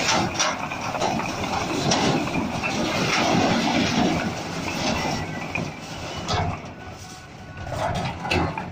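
A load of fly ash bricks sliding off a tipping tractor trailer and crashing onto the pile below, a dense clatter of bricks knocking against bricks. After about five seconds it thins to a few separate knocks as the last bricks drop.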